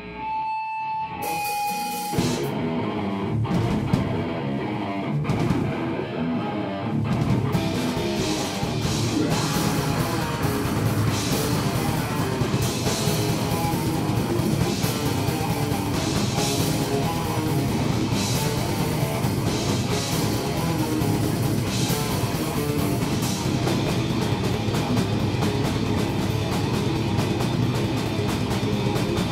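Live rock band playing electric guitar and drum kit. Two short held tones open it, the full band comes in about two seconds in, and the playing grows denser and louder about seven seconds in.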